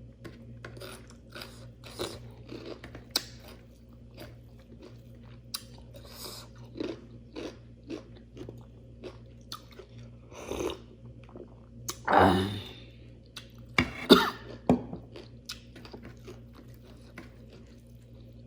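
Close-miked chewing of a rice-and-curry meal: wet mouth smacks and small crunches in quick succession, with a louder burst about twelve seconds in.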